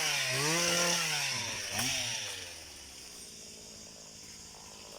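Small engine of a motorized pole pruner, running fast and then slowing, its pitch dropping and wavering, with a brief rev about two seconds in. It then falls to a quiet, low idle.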